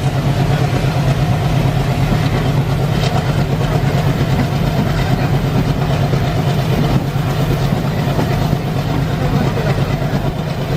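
ALCO WDG-3A diesel locomotive's 16-cylinder turbocharged engine working hard with a fast, even chugging, heard from the train behind it along with the running noise of the coaches.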